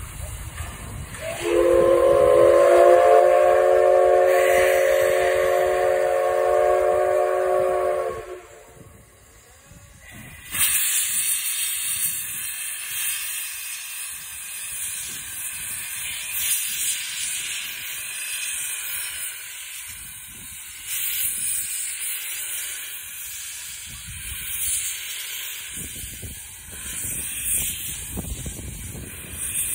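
JNR class C62 steam locomotive's whistle sounding one long blast of several notes at once for about seven seconds as it departs. After a short lull, steam hisses steadily from the open cylinder drain cocks, in uneven surges, as the engine starts to move.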